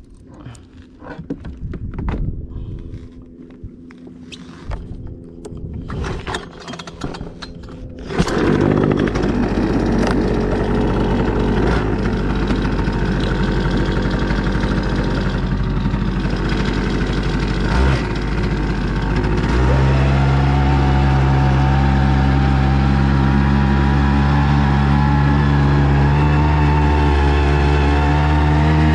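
Knocks and clatter of gear being handled in an inflatable boat, then a small outboard motor starts abruptly and runs steadily. About two-thirds of the way in it speeds up and runs louder as the boat gets under way.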